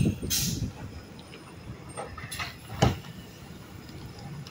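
Refuse truck's diesel engine rumbling low as it drives off, with a short hiss about half a second in and a few knocks, the loudest a sharp knock just before three seconds in.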